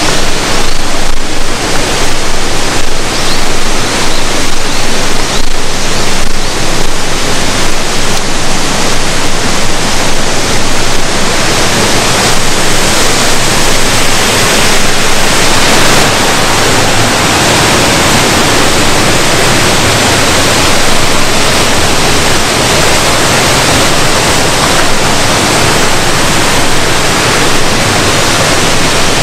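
Loud, steady rush of a waterfall, a little uneven for the first several seconds.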